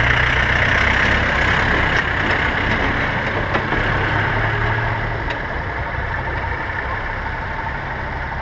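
A camera drone's propellers whir steadily, with vintage tractor engines idling below.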